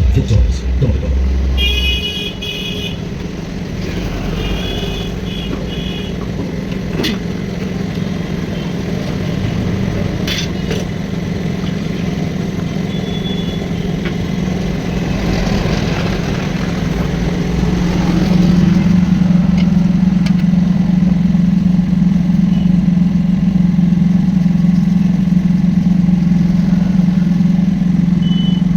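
A machine motor running with a steady low hum, growing louder about two-thirds of the way through. Short high-pitched beeps sound about two and five seconds in.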